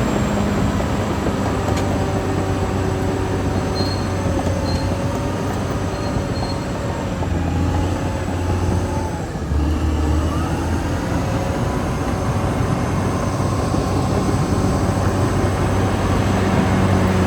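Caterpillar D6R XL crawler bulldozer working: its diesel engine runs steadily under load, mixed with the squeal and clatter of its steel tracks. The engine sound dips for a moment about nine seconds in, then picks up again.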